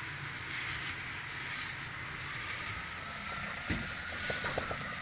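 Steady mechanical hiss and low hum, with a dull knock and a run of light metallic clicks and rattles in the last second or so.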